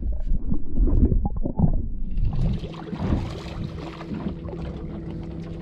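Low rumble of water and wind around a small fishing boat, with scattered knocks in the first two seconds, then a softer, wider hiss.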